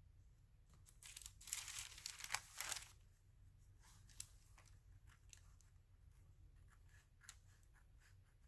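Paper being trimmed from a collage page: a scratchy paper noise lasting about two seconds from about a second in, then a few light clicks.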